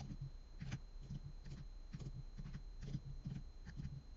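Computer keyboard keys being tapped in quick, irregular runs as six-digit numeric codes are typed in; faint.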